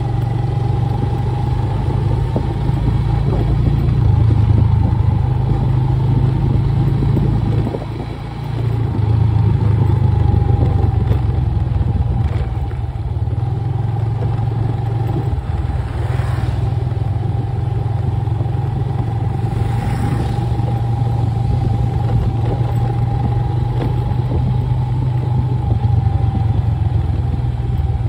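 Motorcycle engine running steadily while riding along a road: a low hum with a steady whine above it. The engine note drops briefly about eight seconds in, then picks up again.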